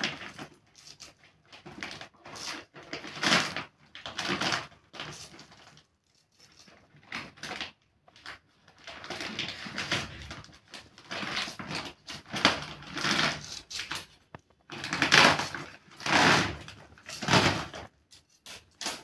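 Cauliflower being cut on a bonti, a curved blade fixed upright in a wooden base: irregular crisp crunching and scraping cuts, each under a second, with short pauses between them.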